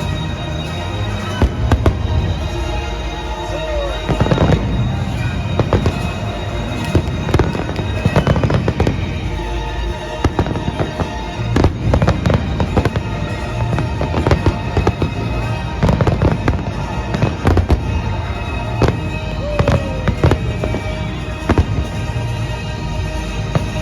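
Fireworks display going off: a rapid, irregular series of sharp bangs and crackling bursts over a continuous low rumble.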